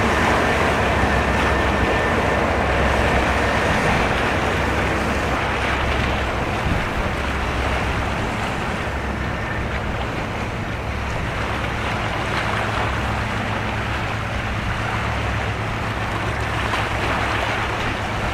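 Patrol ship passing at speed: a steady low engine drone under the rush of its bow wave and wake, with some wind on the microphone. It eases a little as the ship moves past.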